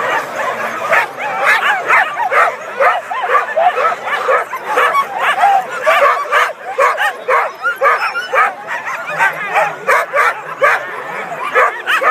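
Many harnessed sled dogs barking and yipping at once, a dense, unbroken chorus of overlapping high yelps and whines: the excited clamour of sled dogs waiting to run.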